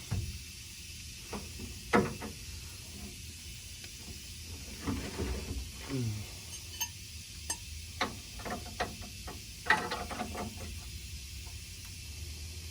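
Scattered metallic clicks and knocks as tools work a bolt loose on a truck bumper, with the loudest knocks about 2 seconds in and near the middle.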